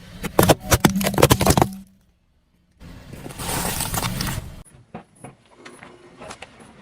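Objects crunching and popping under a car's tyres: a quick run of sharp cracks and pops for about two seconds, then after a brief silence a rushing crunch followed by scattered small crackles.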